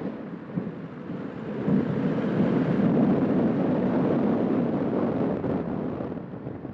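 Seat León FR 1.9 TDI on the move: road and wind noise, growing louder about two seconds in and easing near the end. The owner is trying to identify a strange wheel noise that he says comes neither from the brakes nor from the disc's protective shield.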